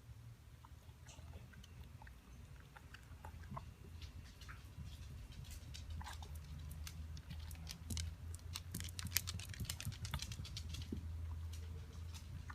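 Dachshund after a seizure making wet, chewing-like smacks and clicks with its mouth. They start sparse and grow into a rapid run through the middle, over a low steady hum.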